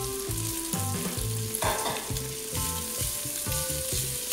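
Diced bacon and calabresa sausage sizzling in a stainless steel pot, frying in the bacon's own rendered fat with no oil added, while a wooden spoon stirs and scrapes through them about a second and a half in. Background music plays underneath.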